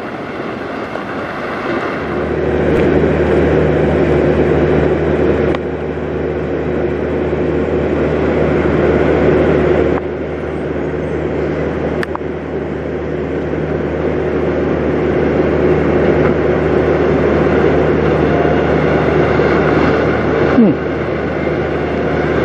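International semi trucks' diesel engines running at low speed as the rigs pull slowly through a truck stop, a steady low engine hum. A brief falling sound near the end.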